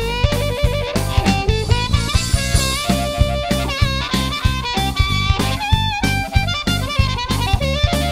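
Background music with a steady beat and a melody line over it.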